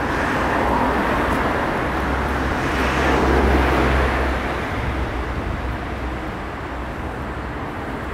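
Street traffic noise, with one motor vehicle passing close by: its low rumble swells about three seconds in and then fades.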